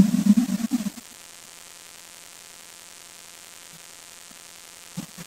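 Music with drums breaking off about a second in, followed by a faint steady electrical hum and hiss, with two soft thumps near the end.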